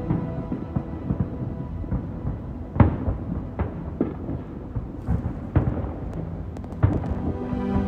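Fireworks going off: a continuous low rumble of bursts, with sharp bangs about three seconds in and again a few more times after, and a crackle of small pops between about five and seven seconds.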